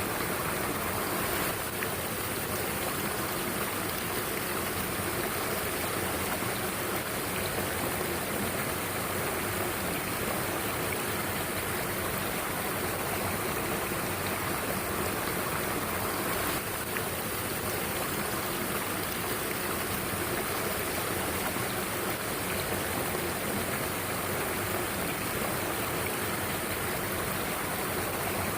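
Mountain stream rushing steadily, an even, unbroken wash of flowing water.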